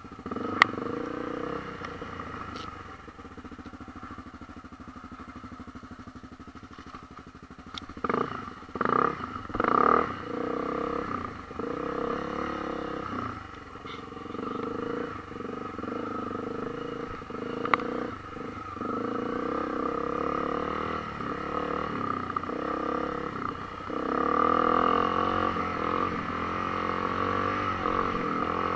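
Honda CRF250L dual-sport motorcycle's single-cylinder four-stroke engine running at low speed, the revs rising and falling over rough rock. A few louder bursts come about eight to ten seconds in, and it runs louder again near the end.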